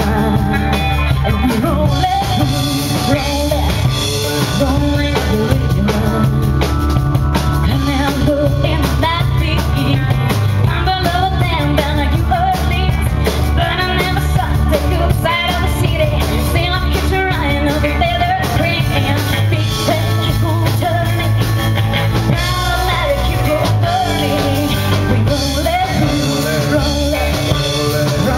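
Live rock band playing: drum kit, electric guitars and keyboard, with a woman singing lead through the PA.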